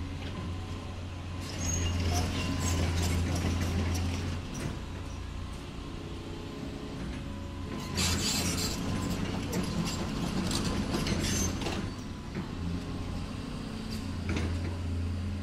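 Huina RC model excavator's electric motors and gearboxes whirring with clicking, in two louder stretches as it drives on its tracks, over a steady low hum.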